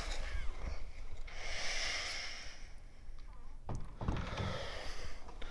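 Handling noise from a handheld camera being moved about, with low rumble and a few knocks, and a long breathy exhale about a second and a half in.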